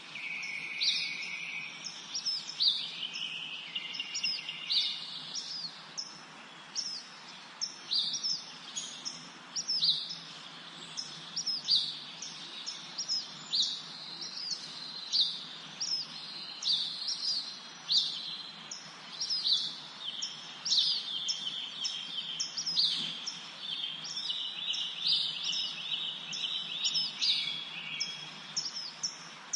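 Songbirds chirping and singing: many short, high chirps that sweep downward, one or two a second, over longer drawn-out trilling notes, on a faint steady hiss.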